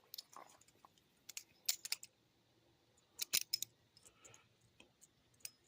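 Old, worn balisong (butterfly knife) being flipped: its metal handles and blade click and clack against each other in a few quick clusters of sharp clicks.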